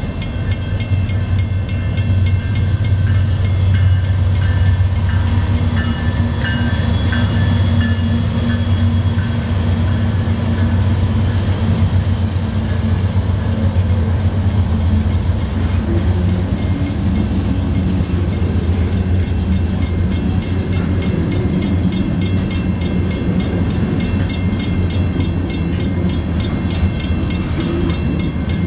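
Norfolk Southern diesel freight locomotives running up to and through a grade crossing with a deep, steady engine rumble that grows about halfway through, followed by freight cars rolling over the crossing. A fast, even ringing from the crossing signals' bells runs underneath.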